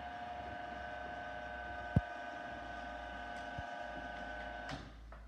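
A printing machine's electric motor running with a steady whine, then stopping near the end. A single sharp knock about two seconds in.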